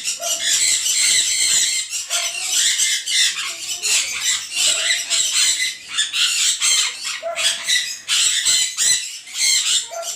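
A group of small birds calling continuously, a dense high-pitched chatter of many overlapping calls, with lower short notes every second or two.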